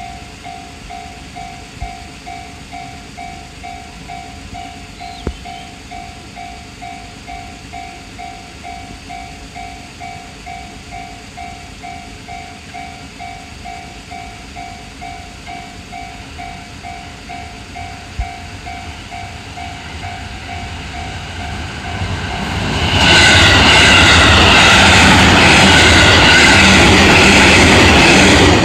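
Japanese railroad crossing warning bell ringing its repeated kan-kan, about two strokes a second. About 23 seconds in, a JR West 221 series electric train passes loudly over the crossing, its running noise covering the bell.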